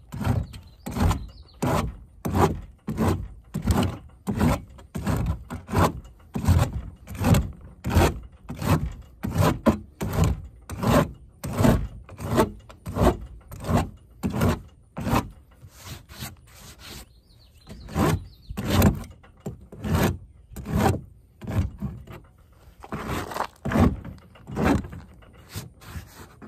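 Hand rasp scraping over a plastic weld on a polyethylene kayak hull in quick, light back-and-forth strokes, about two a second, knocking down the high spots of the weld. The strokes pause briefly about sixteen seconds in, then resume.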